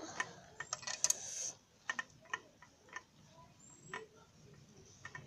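Light metallic clicks and ticks at an irregular pace, thickest in the first half, from a hex key turning a bolt in a scooter's handlebar clamp.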